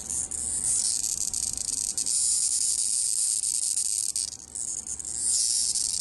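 Cicadas held in a dog's mouth buzzing in a harsh, high hiss: the distress buzz of captured cicadas. The buzz runs for about four seconds, breaks off briefly, then starts again near the end.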